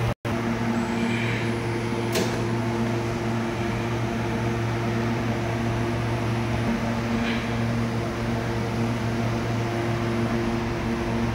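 Steady machine hum of a load bank test rig running an inverter under load: cooling fans whirring over an even electrical hum with several steady tones. A sharp click about two seconds in, and a softer one a few seconds later.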